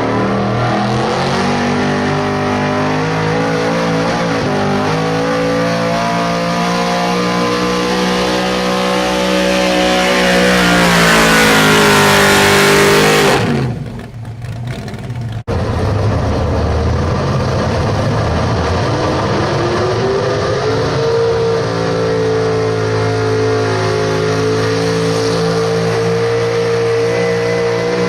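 Super stock 4x4 pulling truck's engine running at high revs under load during a pull, climbing in pitch to its loudest near the middle and then dropping off sharply. After an abrupt break, another run comes in at high, steady revs, its pitch rising a little later on.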